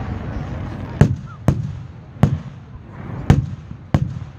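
Aerial fireworks shells bursting overhead: five sharp bangs at uneven intervals, each trailing off in a low rumble.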